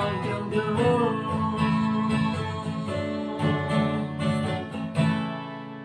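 Instrumental music on strummed acoustic guitar closing out a song; a last chord is struck about five seconds in and left to ring and fade.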